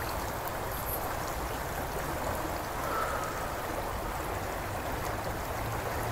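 River water rushing over rocks in a steady, even rush.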